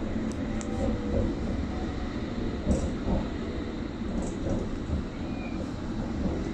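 London Underground District line train running, with a steady rumble and a few short, sharp clicks and rattles.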